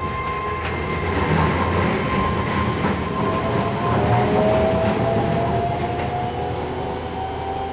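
Keihan electric train running, heard from inside the car: a steady rumble of wheels on track with a few clicks as it crosses the points. From about three seconds in, a whine climbs slowly in pitch.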